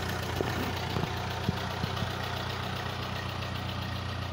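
1948 Ferguson TE20 tractor's four-cylinder gasoline engine running smoothly and steadily at low revs, with a few light clicks in the first couple of seconds. It has no popping exhaust: this is how it should sound with a fresh tune-up and freshly set timing.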